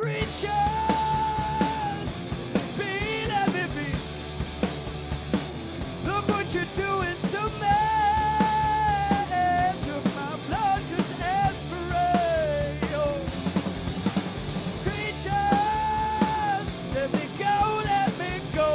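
A rock band playing live: a male lead singer with long held notes over electric guitar, electric bass and a drum kit.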